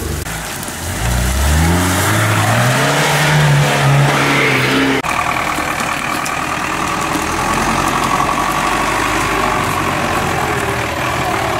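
A small 4x4's engine revving hard, rising steadily in pitch for about five seconds. It then cuts to a GAZ-66 truck's V8 petrol engine running steadily with a high whine as the truck crawls through brush.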